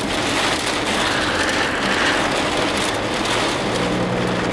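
Steady rushing noise of strong wind and blowing dust against a moving car, heard from inside the cabin, in the outer circulation of a weak tornado; a low steady hum from the car joins near the end.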